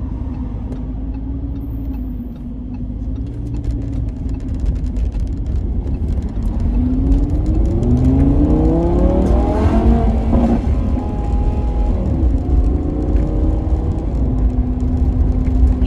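Lamborghini engine accelerating over a constant low road rumble: its pitch climbs from about six seconds in, drops back near ten seconds, then holds steady.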